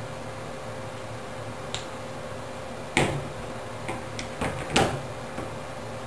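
Hand wire stripper clicking and snapping as it cuts through the coax cable's insulation: a few sharp clicks, the two loudest about three seconds in and near the five-second mark.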